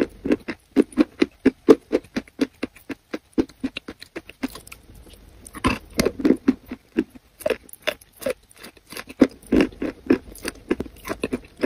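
Chewing a mouthful of crumbly chalk coated in yellow clay: quick, even chews about four a second, with a pause of about a second and a half around four seconds in.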